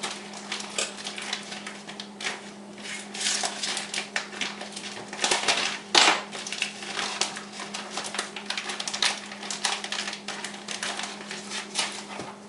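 Kitchen handling noises of a sandwich being put together: many small clicks, taps and rustles of utensils, dishes and food packaging, with one sharper knock about halfway through, over a steady low hum.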